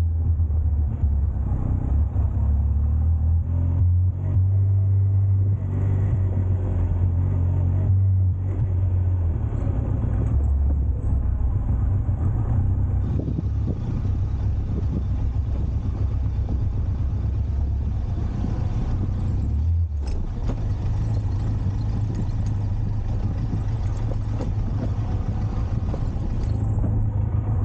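Benelli TRK 502X's parallel-twin engine running at low revs as the motorcycle rides a dirt track, its pitch stepping down about nine seconds in and cutting out briefly around twenty seconds.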